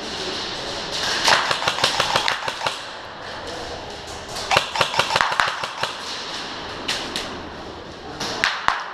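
Airsoft guns firing rapid bursts of sharp cracks: a long burst about a second in, another around the middle, and short bursts near the end.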